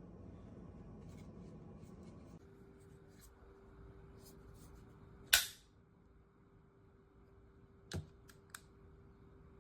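Sharp clicks of something being handled: one loud click about five seconds in and two softer ones near the end, over faint scattered ticks and a faint steady hum.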